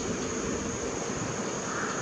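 Steady outdoor background noise: a low, even rumble with a constant high-pitched whine above it and no distinct individual sounds.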